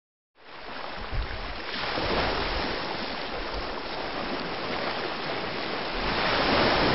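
Ocean surf washing onto a sandy beach: a steady rush of waves that fades in about half a second in.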